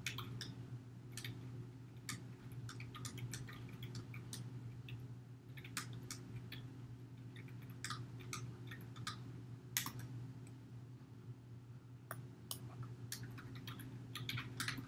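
Computer keyboard typing: irregular key clicks in uneven runs, with a low steady hum underneath.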